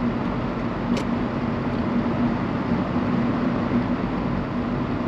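Steady road and engine noise of a car driving at a constant speed, heard inside the cabin, with a low, even hum underneath.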